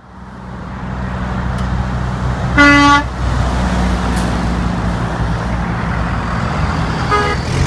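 A truck horn sounds one short blast about two and a half seconds in, the loudest thing here, over steady road and engine noise from a moving vehicle on the highway. A shorter, fainter horn toot comes near the end.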